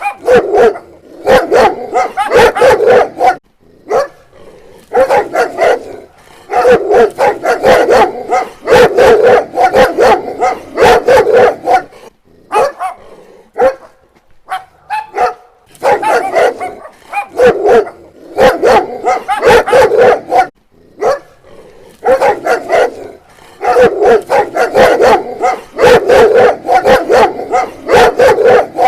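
Dog barking loudly and rapidly, several barks a second, in bouts of a few seconds with short pauses between them.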